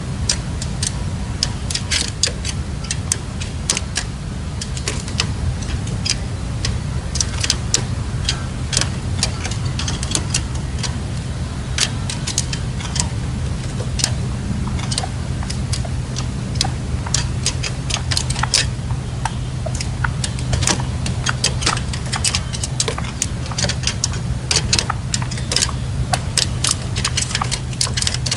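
Red-legged partridges, the caged decoy male and a wild bird, giving soft, short clicking calls, irregular and several a second, over a steady low rumble.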